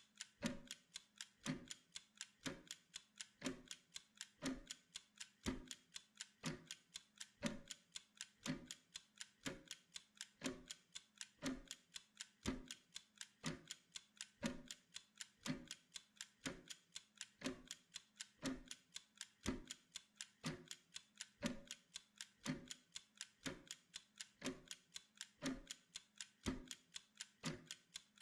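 Mechanical timer ticking steadily: fast, even ticks with a heavier tick about once a second.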